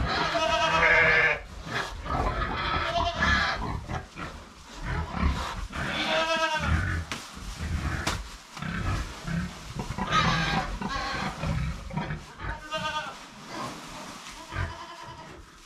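Goats bleating, about six wavering, drawn-out calls a few seconds apart.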